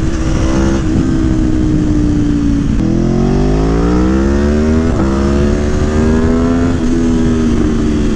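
Aprilia Tuono V4 1100 engine, with a Gabro Stage 3 airbox and ECU flash, pulling hard under acceleration. The pitch climbs and breaks off sharply three or four times as it shifts up through the gears with the quick shifter, over a steady rush of wind.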